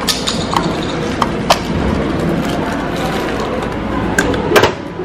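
Several sharp plastic clicks and handling sounds as the parts of a small capsule-toy princess figure are fitted and snapped together, the loudest click a little before the end, over steady shop background noise.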